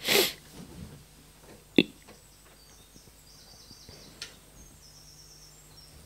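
Quiet room tone in a pause between words, opening with a short rush of breath noise close to the microphone. A single sharp click comes about two seconds in, and faint high chirps sound near the middle.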